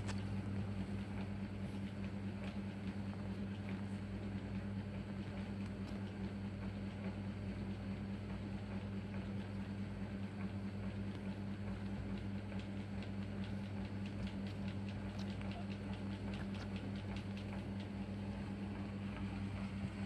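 Light scattered patter, small scratches and rustles of kittens tussling on a bed cover, over a steady low hum.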